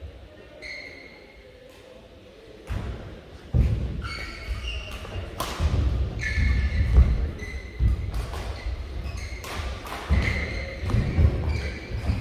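Badminton singles rally: sharp racket-on-shuttlecock hits, heavy thudding footsteps and lunges on the court, and short shoe squeaks on the court mat. The rally starts about three seconds in.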